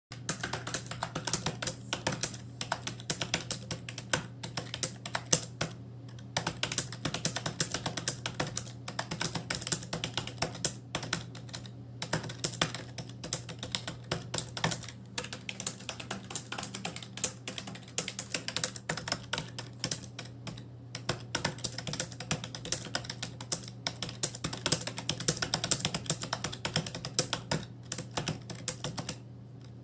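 Fast continuous typing on a computer keyboard, a rapid run of key clicks with brief pauses, stopping shortly before the end, over a steady low hum.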